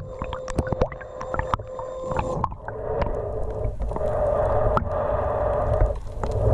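Electric underwater sea scooter's motor whining steadily underwater, with crackling clicks, then cutting off about two and a half seconds in. After that there is muffled underwater water noise that swells and fades.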